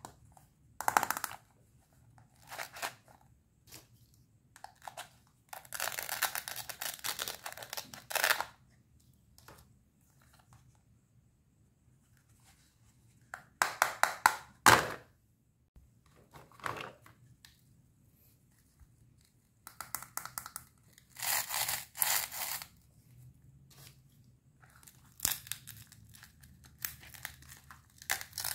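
Plastic toy cutting-set fruit halves, held together with Velcro, being pulled apart in spells of tearing sound, with plastic pieces clicking against each other. The longest tear lasts about two seconds.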